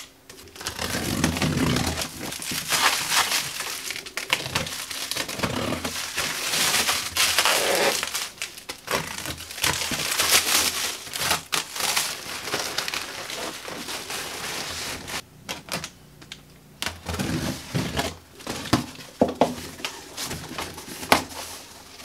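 Clear plastic wrap crinkling and crackling as it is cut and torn off a cardboard box, with irregular clicks and rustles throughout; cardboard flaps rustle as they are opened near the end.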